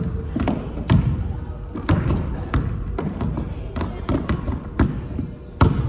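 A basketball being dribbled on a court: a string of sharp bounces, mostly about half a second apart, with a short break near the middle.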